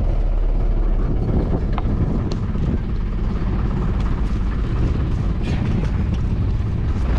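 Motor vehicle running slowly, heard from inside the cabin as a steady low rumble, with a few faint clicks.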